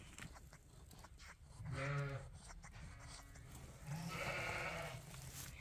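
Sheep bleating twice: a short low bleat about two seconds in, then a longer, rougher bleat about four seconds in.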